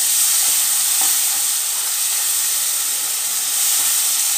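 Onion-tomato masala sizzling hard in a hot pan just after water has been poured onto the hot oil, with a spatula stirring through it. A steady, even hiss with steam rising.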